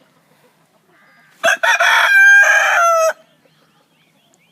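Rooster crowing once, a loud cock-a-doodle-doo starting about a second and a half in and lasting about a second and a half.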